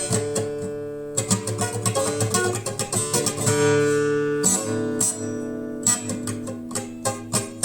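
Acoustic guitar music, notes plucked and strummed over sustained chords.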